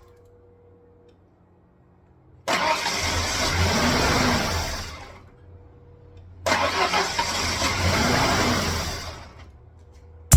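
1996 Ford Ranger engine cranked over on the starter in two start attempts, each a few seconds long and cutting off between tries. The freshly installed replacement engine is being tried for the first time.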